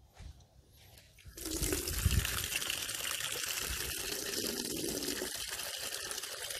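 Water running steadily into a plastic basin, filling it; the flow starts about a second and a half in and cuts off suddenly near the end, with a brief low bump about two seconds in.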